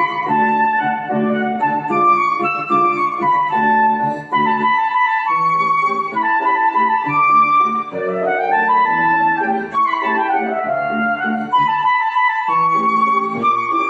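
Woodwind solo playing the melody of a waltz over piano accompaniment, with a rising run about eight seconds in and a falling line soon after.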